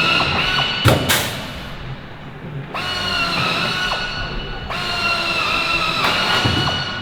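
A pneumatic air tool, most likely an air drill used for rivet work on aircraft skin, runs in three bursts of about a second and a half each with a steady high whine, and sharp knocks fall between the bursts.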